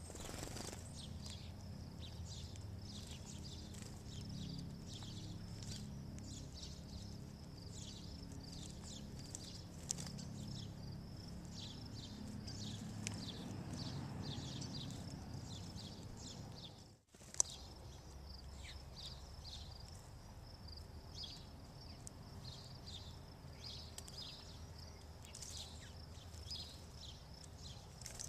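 House sparrows chirping over and over in quick, short, high chirps, over a low steady rumble. The sound cuts out briefly about two-thirds of the way in.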